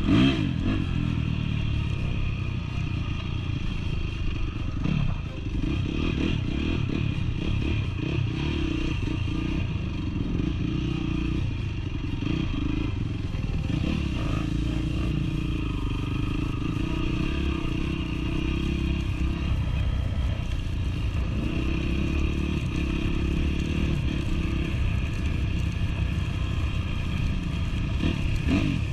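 Honda CRF dirt bike's four-stroke engine running as it is ridden off-road, its pitch rising and falling with the throttle. Short knocks and rattles from the ride over rough ground come through now and then.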